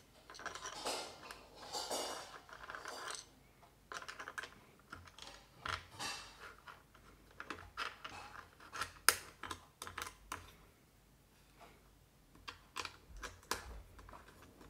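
Plastic handling clicks, taps and scrapes as a detachable stand is fitted and its screw knob turned on the back of a digital picture frame. The clicks are scattered and irregular, with a sharper click about nine seconds in.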